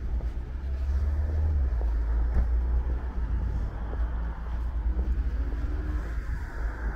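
Street traffic: a steady low rumble of passing cars, with tyre noise building near the end as a car approaches.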